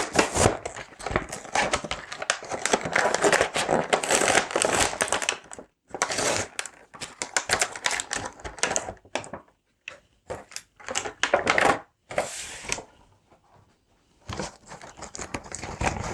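Toy packaging being opened and handled: dense crinkling and crackling for the first several seconds, then in short bursts with pauses between them.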